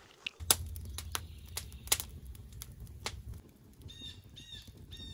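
Wood campfire crackling with scattered sharp pops over a low steady rumble. A bird chirps a few short arched notes about four seconds in.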